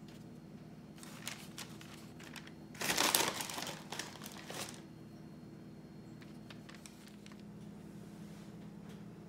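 Paper crinkling and rustling as it is handled, loudest for about two seconds starting three seconds in, with a few lighter crackles before it.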